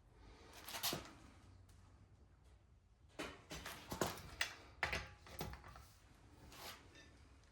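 Scattered sharp clicks and knocks of hand tools handled at the car's wheel. There is a cluster about a second in and a denser run of clicks from about three to five and a half seconds in.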